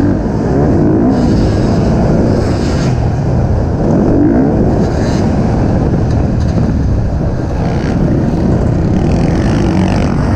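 Racing engine running hard, its pitch rising and falling repeatedly as it is revved up and let off.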